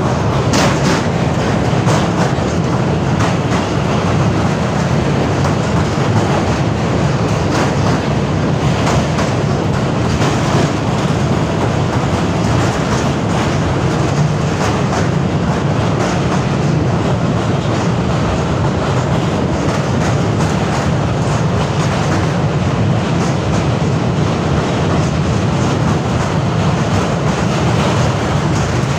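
Thal Express passenger train running steadily, heard from inside a carriage at the window: a continuous loud, low rumble of wheels on track and rattling coaches.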